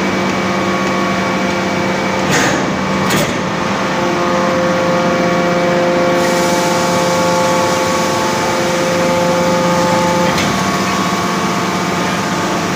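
Hydraulic forging press running: a steady, loud machine hum carrying several held tones that shift as it works. Two short noisy bursts come about two and three seconds in, and a sharp click near the end.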